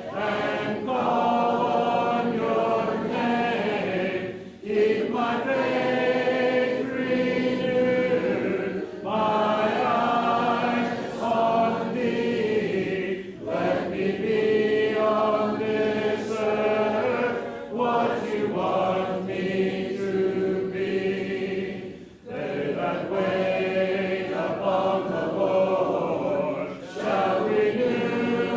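A congregation singing a hymn in unaccompanied mixed voices. The phrases are sustained, with a short pause for breath about every four to five seconds.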